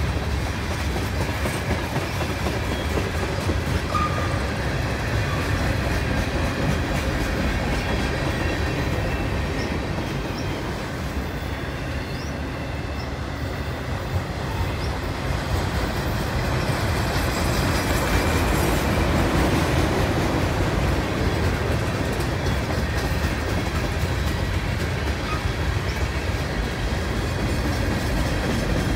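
CN mixed freight train of tank cars, an autorack and boxcars rolling past close by, with a steady sound of steel wheels running on the rails.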